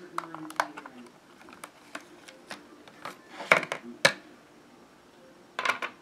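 Hard clear plastic packaging clicking and crackling as a model locomotive is worked out of its plastic cradle, with a louder cluster of clicks about three and a half to four seconds in.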